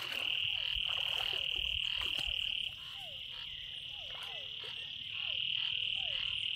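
Frog chorus from rain-flooded ground: a loud, unbroken high-pitched trill that stops about two and a half seconds in and starts again about five seconds in, over short calls sliding down in pitch about twice a second. Now and then water splashes around a person wading.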